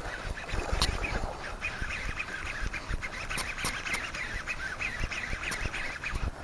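Ducks quacking repeatedly, with a few sharp knocks.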